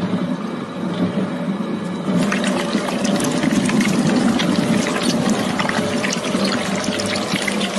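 Shredder blades grinding through a soft green gel block: a steady low machine drone under crackling crushing noise, which grows denser about two seconds in.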